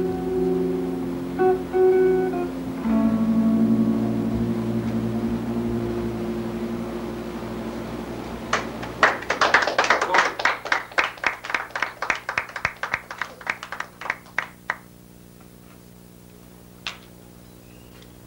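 Electric guitar and electric bass holding their last notes, with a low note left to ring out and fade. Then scattered clapping from a small audience for about six seconds, thinning out, and one last clap a couple of seconds later.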